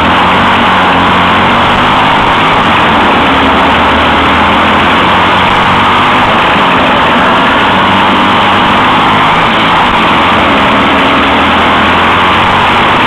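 On-board engine of a dirt-track racing kart (602/652 class) at racing speed, loud and steady throughout, with a dense rushing noise over it.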